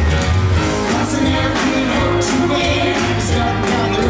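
Pop-rock song with a steady beat and a singing voice, played loud.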